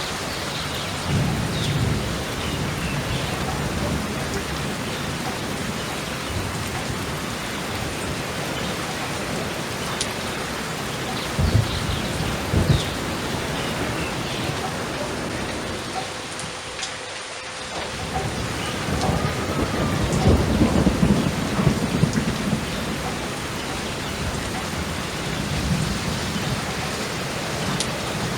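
Steady rain with rolling thunder: two sharp thunder cracks about a dozen seconds in, then a long low rumble past the middle, after the rain briefly dips.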